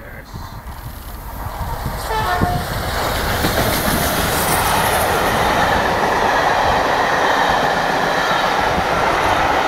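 LMS Princess Coronation Class steam locomotive 6233 Duchess of Sutherland and its coaches passing. A short whistle sounds about two seconds in, then a steady rush and clatter of the train rolling by grows louder and holds.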